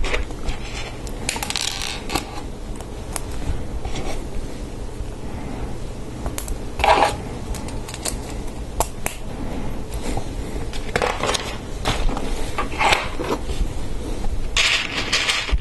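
LEGO Technic plastic pieces clicking and scraping together in the hands as parts are pressed onto one another: scattered sharp clicks with a few short scraping bursts.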